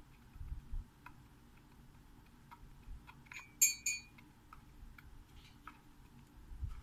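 Faint ticks and small clicks of a fine metal pick working at the voice coil of a tweeter diaphragm, with two sharper metallic clinks that ring briefly a little past the middle.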